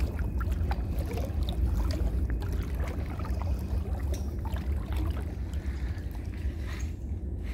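Creek water sloshing and splashing around the legs of someone wading through the shallows, with scattered small splashes and a steady low rumble on the phone's microphone.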